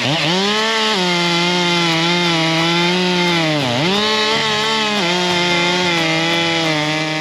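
Two-stroke chainsaw revving up and held at high revs while bucking a dry dead log to length, its pitch dipping briefly under load about halfway through before picking up again.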